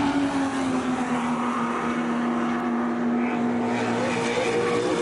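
Mk1 Ford Capri race car's engine running on track at steady revs, its pitch sagging slightly, then a brief rise in revs near the end.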